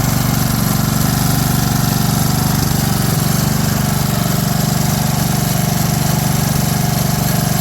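Ryan core aerator's small gasoline engine running steadily, with a fast, even pulse.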